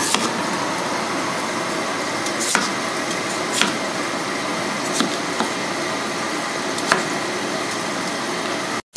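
A few sharp knocks of a steel cleaver on a wooden cutting board as cubed potatoes are chopped and gathered, over a steady hum of background noise.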